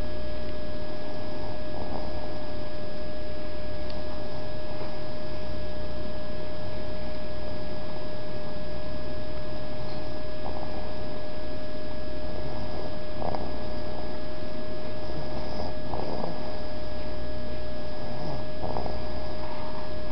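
Slow, rhythmic snoring from a sleeper, as a low rumble that swells every couple of seconds, with a few faint snorts. A steady electronic tone runs beneath it.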